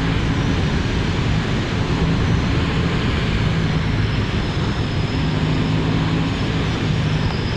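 Aprilia Tuono 660's parallel-twin engine running at a steady speed and holding one note, under a steady rush of wind noise while riding.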